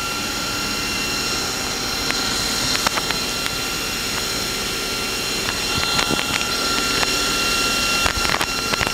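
Live milling tool on the turret of a Nakamura-Tome WTS-150 CNC turning center spinning at about 2,500 RPM: a steady whine made of several high tones over a hiss, with a few light clicks.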